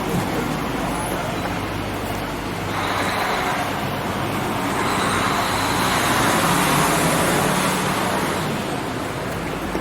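City street traffic: a steady drone of engines and tyres, swelling in the middle as a vehicle passes close by.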